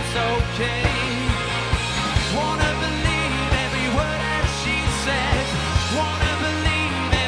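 Pop/rock band playing live: a steady drum beat of about two hits a second under bass and melodic lines.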